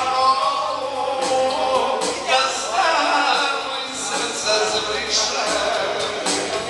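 A man singing into a microphone over live amplified music in a hall.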